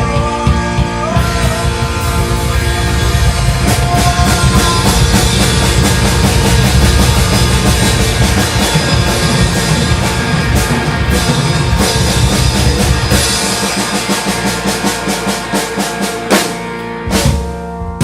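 Rock band playing with drum kit and guitar. About two-thirds of the way through, the low end drops away, leaving separate loud drum strikes near the end.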